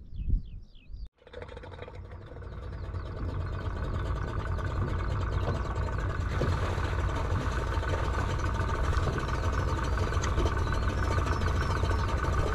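Birds chirping for about a second, then a brief cut to quiet. After that, a boat's outboard motor idling in a steady rumble that builds over the next few seconds, with birds chirping faintly over it.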